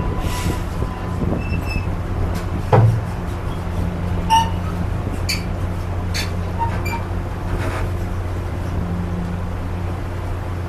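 Railroad passenger coach in motion, heard from inside its open end vestibule: a steady low rumble of wheels on rail. Over it come scattered short metallic clanks and rattles, the loudest a sharp knock about three seconds in.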